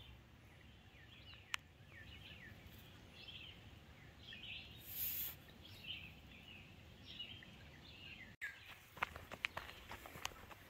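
Birds chirping and calling in woodland, short scattered chirps through most of the stretch, with a brief hiss about halfway. Near the end, after a cut, footsteps on a dirt trail.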